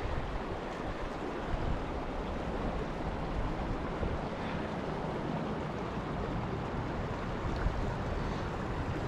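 Big Thompson River flowing steadily over rocks, a continuous even rushing.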